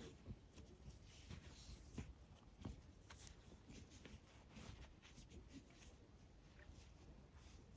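Faint rustling and soft ticks of nylon paracord being pulled through a macramé knot and drawn tight by hand, in a very quiet room.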